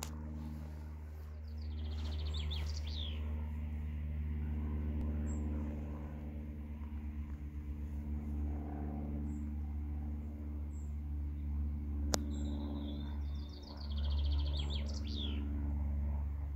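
Wind rumbling steadily on the microphone while a songbird sings two short trilled phrases that fall in pitch at the end, one near the start and one about three-quarters of the way through. A few short high chirps come in between, and there is a single sharp click about twelve seconds in.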